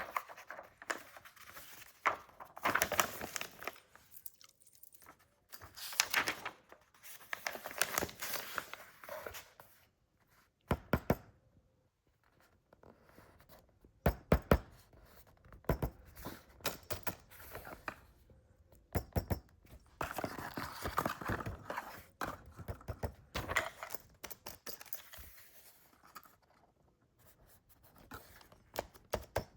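Handling noises from unpacking: packaging tearing and rustling in irregular bouts, with sharp clicks and knocks.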